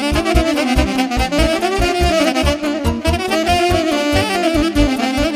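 Live saxophone playing a fast, winding Bihor folk dance tune over a steady, evenly spaced bass and drum beat.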